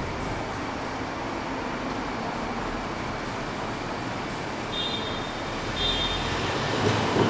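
Steady rumble of trains and traffic, with two short high beeps about five seconds in. Near the end a Nishitetsu electric train starts to come nearer and grows louder.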